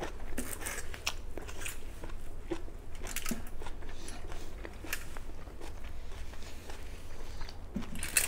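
Close-up chewing of a mouthful of broccoli, with irregular small crunches and mouth clicks.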